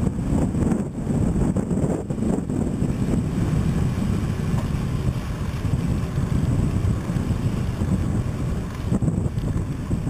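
Wind buffeting the camera microphone on a recumbent trike moving at racing speed, over a steady rumble of its tyres rolling on coarse asphalt.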